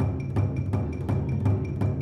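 Background music with a steady drum beat, about three strokes a second.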